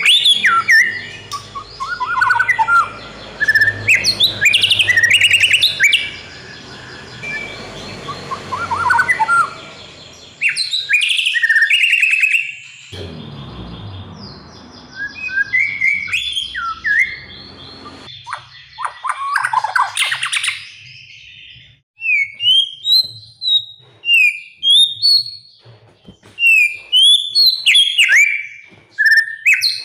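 White-rumped shama (murai batu) singing a loud, varied song of rich whistles and rapid chattering phrases, breaking in the last third into a string of short, sharp whistled notes about two a second.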